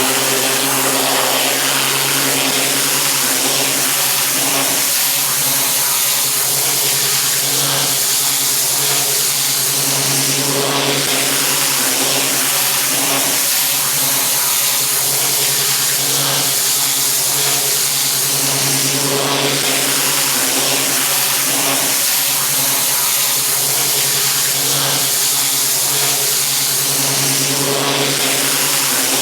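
Pressure washer's engine running steadily under the loud hiss of its high-pressure water jet spraying block paving.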